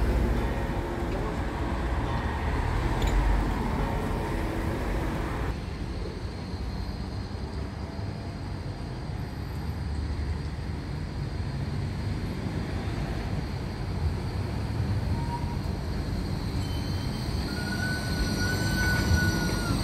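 A car passing on the road, cut off abruptly about five seconds in, then a BVB Flexity low-floor tram approaching and rumbling round a tight curve, its wheels squealing in high thin tones near the end as it takes the bend.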